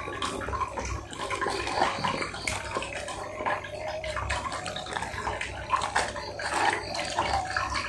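Tap water running steadily into a bucket, with rustling and knocks from a cardboard fried-chicken box being handled and opened.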